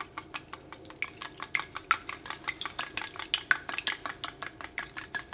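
Wire whisk beating three raw eggs in a white ceramic bowl, its wires clinking against the bowl in a fast, even rhythm of several strokes a second.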